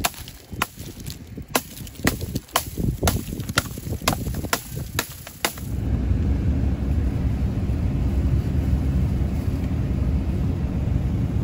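Repeated hammer blows, about two a second, on an ice-coated metal gate as someone tries to break it free. About six seconds in these give way to a pickup truck running, a steady low rumble heard from inside the cab.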